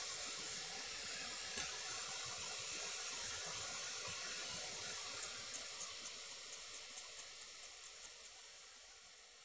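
Hot air rework station blowing a steady airy hiss that fades away gradually over the second half, with a few faint ticks around six seconds in.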